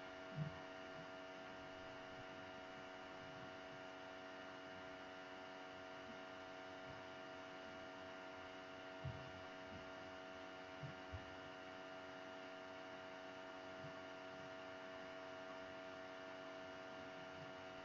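Faint steady hum made of several fixed tones, with a few soft low thumps around the middle.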